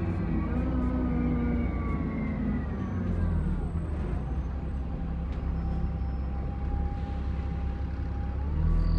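Alexander Dennis Enviro400 Trident double-decker bus engine running with a turbo whine over a low rumble. The whine falls in pitch about three to four seconds in as the bus slows, holds steady, then rises again near the end as it picks up.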